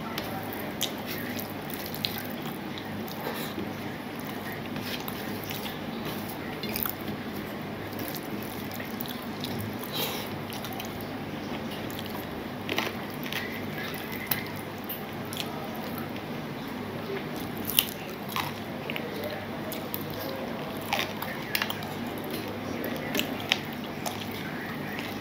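Eating rice and curry by hand from a stainless steel plate: chewing and mouth smacks, with scattered small clicks and ticks from fingers working the food on the plate, over a steady low hum.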